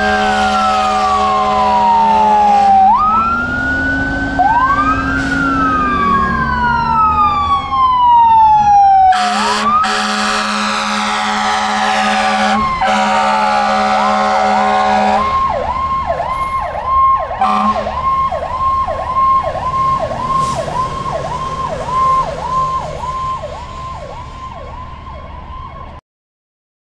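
Ambulance electronic sirens wailing in slow rising and falling sweeps, two at times overlapping, over steady air horn blasts. About fifteen seconds in the siren switches to a fast yelp at about two cycles a second, which cuts off abruptly near the end.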